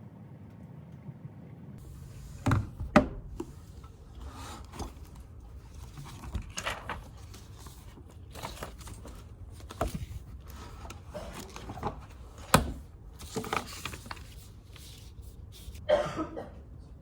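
A series of sharp knocks and clatters, a second or a few seconds apart, over a steady low background noise.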